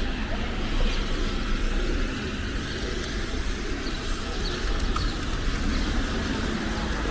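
Outdoor street ambience: a steady hum of traffic with a few faint bird chirps.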